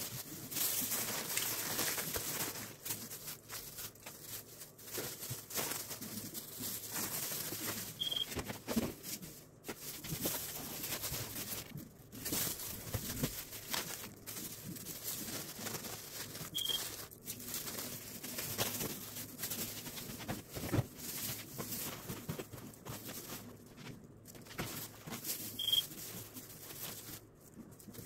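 A plastic bag crinkling and rustling as white granules are tipped out of it into a glass bowl of liquid. A short high beep repeats about every eight seconds.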